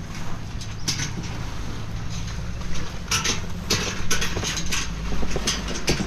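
An engine running steadily with a low hum, together with scattered short scuffs and knocks.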